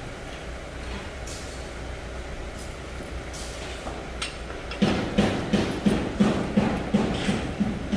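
Steady low hum, then about five seconds in a run of regular strokes, about three a second, from hand-tool work on a fitting under the car lift's arm.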